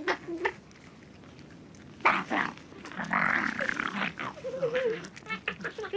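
Foxes snarling and growling in a squabble over a carcass: a sharp snarl about two seconds in, a harsh hissing snarl, then a wavering growl and quick yelps near the end.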